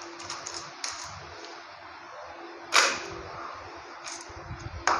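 Ice cubes clacking as they are picked from a bowl and dropped into a blender jar: a few scattered sharp knocks, the loudest about halfway through and another just before the end.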